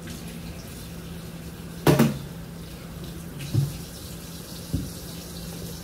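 Kitchen tap running steadily into a sink, with three knocks of kitchenware, the loudest about two seconds in.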